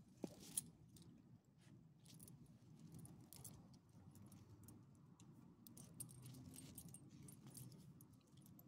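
Faint jingling and clicking of a dog's metal leash clip and collar hardware as the dog moves about, with two sharp clicks near the start.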